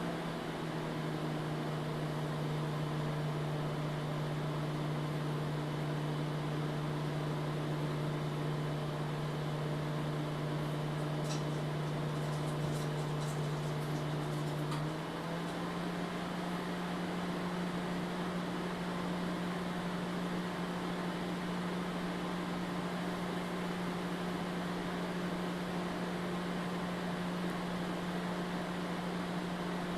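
Microwave oven running with a steady hum and fan noise while heating a frozen lasagna. Its hum shifts slightly in pitch about halfway through, and a few faint ticks come shortly before that.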